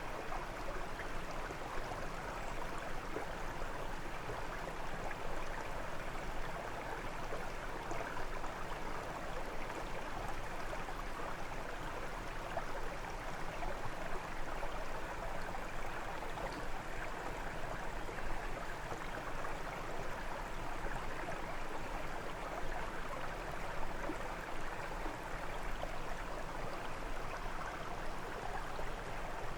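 A brook babbling and splashing steadily over stones, a continuous rush of running water.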